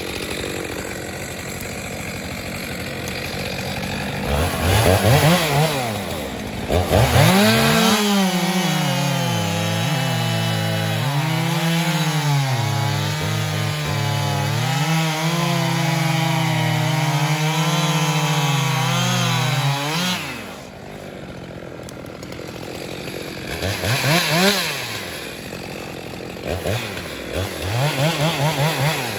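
Two-stroke chainsaw bucking a tree trunk: it revs up, then runs at full throttle through a long cut for about thirteen seconds, the engine note dipping and recovering as it bogs under load in the wood. It drops back to idle as the cut finishes, and is blipped a few more times near the end.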